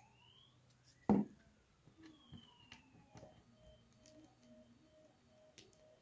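Sony car stereo head unit handled during reassembly: one sharp knock about a second in, then a few faint clicks. Faint gliding whistles and a faint tone pulsing about twice a second run underneath.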